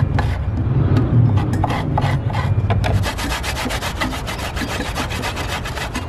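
Fresh coconut meat grated by hand on a metal box grater: a quick, continuous run of rasping strokes.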